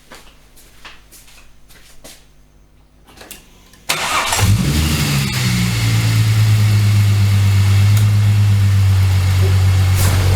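A Holden VY Commodore's supercharged 3.8-litre L67 V6 is started. After a few light knocks, it fires about four seconds in, flares briefly, then settles into a steady idle.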